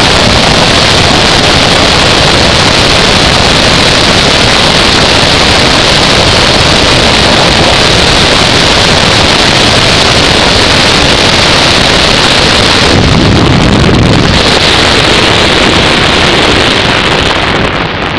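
Loud, steady rush of wind buffeting the onboard camera microphone as the engineless gravity car coasts downhill at speed. About thirteen seconds in, the hiss thins briefly and a low rumble swells, and the rush eases near the end.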